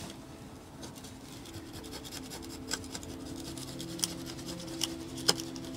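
A hand-held scouring pad scrubs the winch's deck mounting plate in quick rubbing strokes, clearing old silicone sealant. It makes a continuous scratchy rasp, with a few sharper clicks in the second half.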